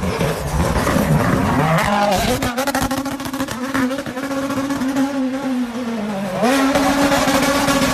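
Rally car engine running hard at high revs: its pitch climbs about two seconds in, sags slowly, then jumps up again just past six seconds. A rattle of clicks runs through the first half.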